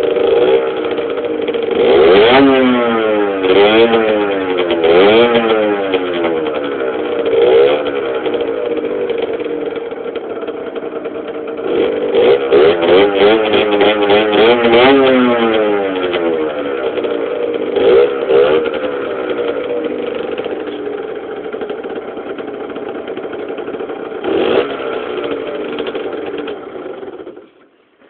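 Peugeot XR6 two-stroke 50cc moped engine through a Conti CHR high-mounted exhaust, revved again and again, its pitch rising and falling between blips and steadier stretches. The engine cuts out near the end.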